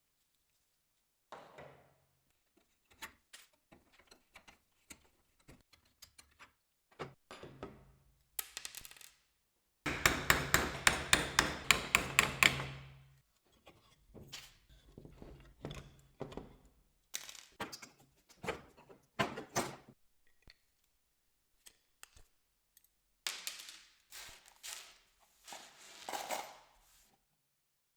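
Knocks and thunks of hand work on a wooden piece of furniture, with a loud, rapid run of strikes about ten seconds in and scattered single knocks around it.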